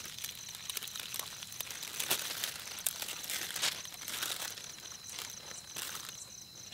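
Thin plastic bags crinkling and rustling in irregular bursts as they are handled, held open and filled with ladled gravy. A steady, high-pitched insect trill runs behind.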